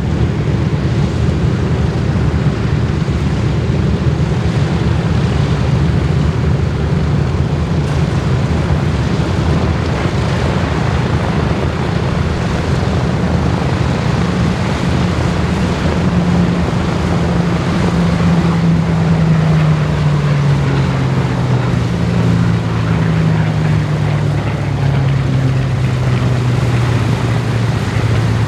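Boeing B-17G Flying Fortress's four Wright R-1820 Cyclone radial engines running close by, a loud steady drone whose pitch slowly falls over the second half.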